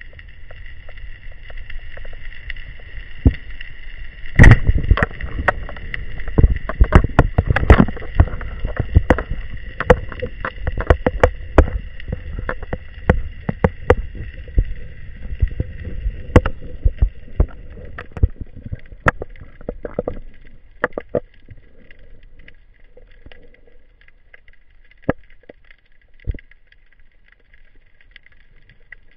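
Underwater recording: a steady high hum with many sharp clicks and knocks, thick for about a dozen seconds and then only now and then, as a spearfisher's gear and speargun are handled near the camera.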